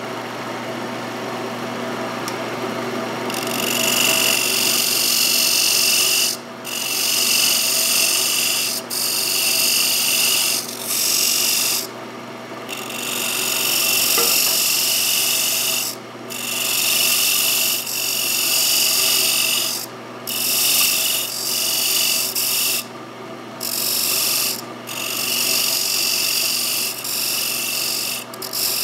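Wood lathe running with a steady hum while a parting tool cuts into a spinning mahogany blank. The cut is a loud hissing scrape that starts about three seconds in and comes in long passes, broken by brief pauses several times.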